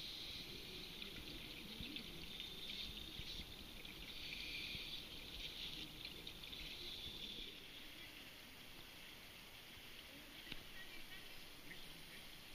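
Faint underwater bubbling and gurgling of scuba divers' exhaled air from their regulators. It is heavier for the first several seconds and thins out after about seven seconds, with a couple of small clicks near the end.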